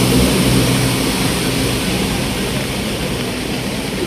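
Steady rushing of fast-flowing floodwater across a road, with a heavy truck's engine running low underneath and fading over the first second or so.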